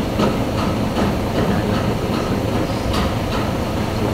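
Steady low mechanical rumble with scattered light metallic clicks and taps from hands working on a truck's air compressor.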